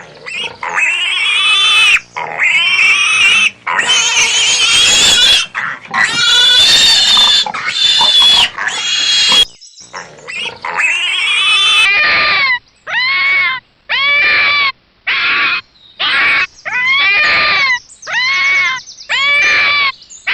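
An animal squealing loudly and high-pitched: long, drawn-out squeals for about the first nine seconds, then, after a short break, a quick run of short calls, roughly one and a half a second, each rising and then falling in pitch.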